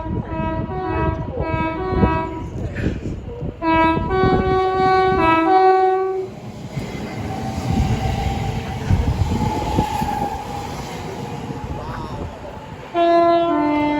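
Train horn with two alternating pitches, sounded as a quick run of short toots, then a few longer blasts. The train runs by with rumble and clatter, and the horn gives one more short two-note blast, high then low, near the end.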